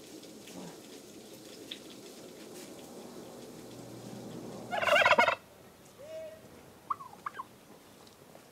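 A domestic turkey tom gobbles once about five seconds in: a loud, rattling call about half a second long. A few faint short calls follow it.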